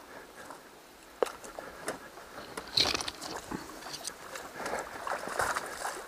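Footsteps wading through a shallow river, with irregular splashes and sloshes of water, a sharp knock about a second in and a louder splash about three seconds in.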